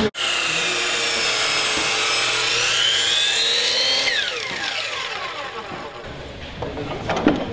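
A 12-inch chop saw's motor runs with a high whine that rises in pitch, is released about four seconds in, and then spins down with a falling whine.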